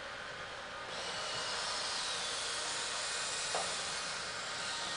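Servo motors of a 3D-printed InMoov humanoid robot whirring as its arms swing out, a steady hissing whir that starts about a second in, with one short chirp a little past the middle.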